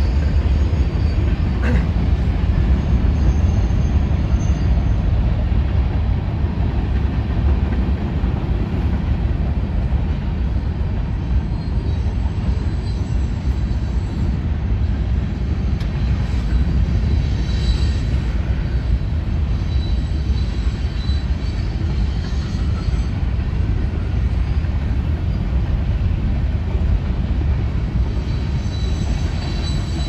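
Freight cars of a manifest train rolling past: a steady low rumble of steel wheels on rail, with a few faint high wheel squeals now and then.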